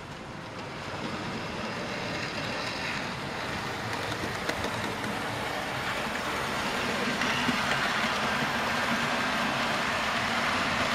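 A train running along the track: a steady rumble that grows slowly louder as it approaches.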